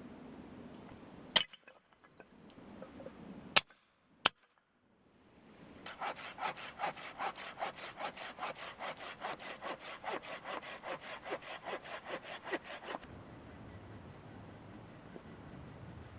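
Hand saw cutting through firewood with fast, even back-and-forth strokes, about five a second, that stop suddenly after some seven seconds. A few sharp knocks come before the sawing.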